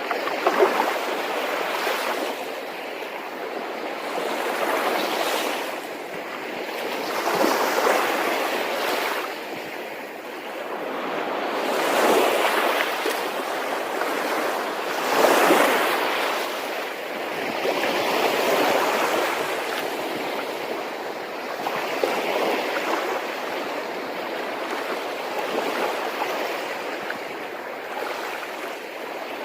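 Water rushing steadily, swelling and easing every few seconds.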